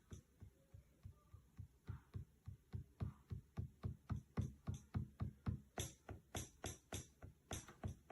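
Electronic drum-machine beat: a fast, even run of deep kick-drum hits, with crisp hi-hat hits joining about six seconds in.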